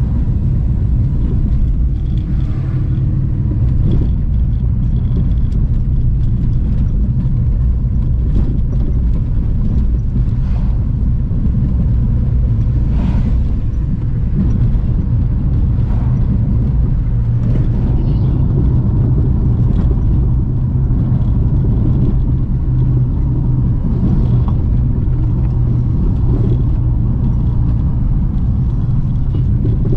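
Car driving along a road: steady engine and tyre rumble.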